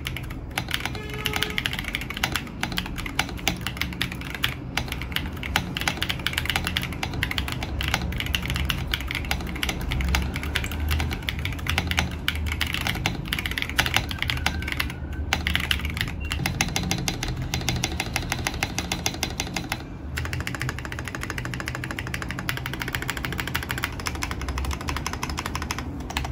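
Continuous fast typing on a custom mechanical keyboard, an Epomaker Aura75 with Epomaker Shadow Black switches and Keytok keycaps: a dense stream of key clacks with a few short pauses.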